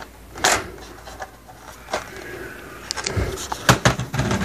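Plastic end cap of an LED tube light being worked loose and pulled off by hand. There is a scrape about half a second in, then a cluster of sharp plastic clicks and knocks near the end.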